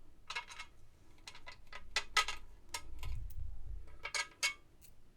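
Irregular knocks and metallic clinks of the old guitar speaker being lifted out of the amp cabinet, its metal frame tapping against the cabinet and hardware; a few of the strikes ring briefly.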